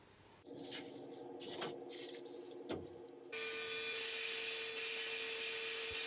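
A few clicks and rubbing handling sounds, then about halfway through a sandblaster cuts in with a steady hiss and a faint steady tone beneath it, blasting the impact driver's knurled bit sleeve.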